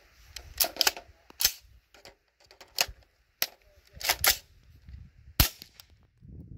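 A suppressed 300 Blackout AR-15 firing 200-grain subsonic rounds that are not cycling the action: a string of sharp metallic clicks and clacks as the rifle is fired and worked by hand. The loudest is a single deep crack about five and a half seconds in.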